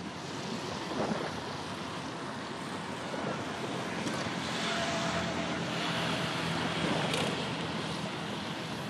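Steady waterfront ambience: wind on the microphone and moving water, with a faint low drone underneath.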